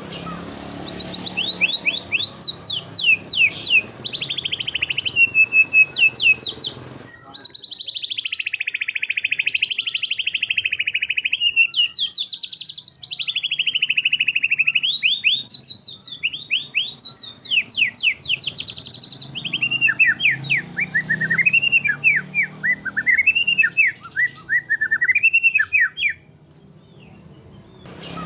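White-rumped shama singing a long, varied song of rapid trills, fast repeated notes and rising and falling whistled phrases, a song packed with 'isian' fill-in phrases. The song breaks off about 26 seconds in.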